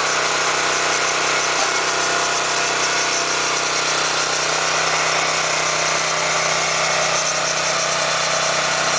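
Small petrol engine of a Gripo 260GX vertical hydraulic log splitter running steadily, driving the splitter's hydraulic pump.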